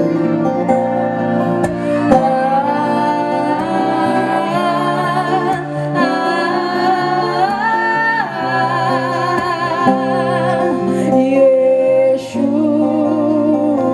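Gospel worship music: a singer holds long, wavering notes over instrumental accompaniment, with the melody stepping up about eight seconds in.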